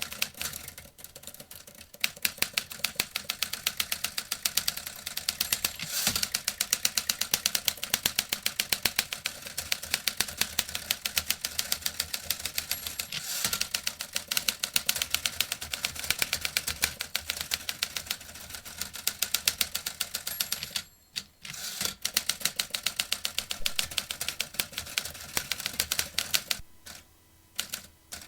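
Vintage typewriter being typed on: a fast, steady run of key strikes that breaks off briefly about two-thirds of the way through, then thins to scattered strikes near the end.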